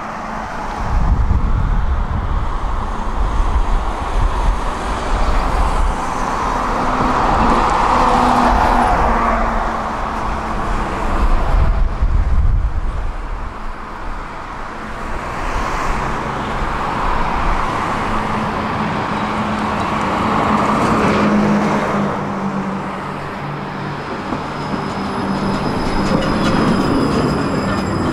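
Tram running along its line: steady rumble of wheels on rails that swells and eases, with a low motor hum underneath. A thin high whine comes in near the end.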